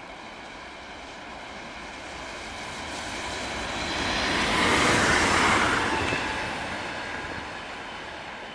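Bombardier Talent 2 electric multiple unit passing at speed: a rushing noise that swells to its loudest about five seconds in as the train goes by, then fades away.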